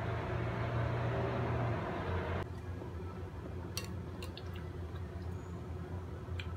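A metal spoon scooping syrup-soaked sweet-potato balls in a ceramic bowl: soft wet squishes and a few light clinks in the second half. A steady hum under the first two and a half seconds cuts off suddenly.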